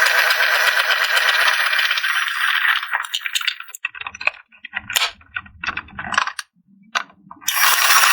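Small plastic toy parts and packaging rattling continuously as they are handled. About three seconds in the rattling thins out into scattered clicks and light taps, then the dense rattling resumes near the end.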